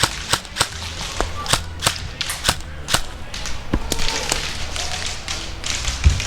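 Airsoft gun firing a string of single shots at uneven spacing, quick in the first few seconds and then sparser, with a heavier thud near the end.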